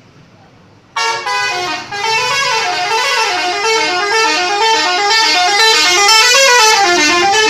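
Indonesian 'telolet' bus horn, a multi-tone musical horn, starting suddenly about a second in and playing a fast melody of short notes that step up and down in pitch.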